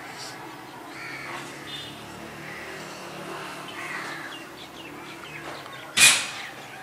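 Crows cawing in the background, with one loud, sudden call near the end.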